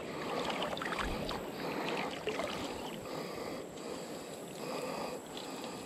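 Water lapping softly around a canoe on a slow river. A faint hiss comes and goes about every second and a half.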